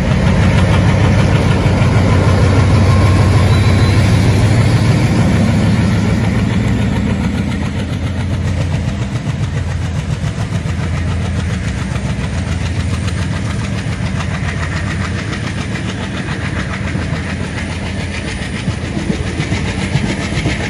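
WDP-3A ALCO diesel locomotive passing under power, its engine loudest in the first few seconds. The coaches of its train then roll past with a steady rumble and clatter of wheels on rail joints.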